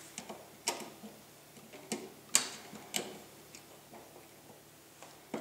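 Plastic wall plate being set over an electrical receptacle and fastened with a screwdriver: a handful of sharp, irregular clicks and taps of plastic and metal.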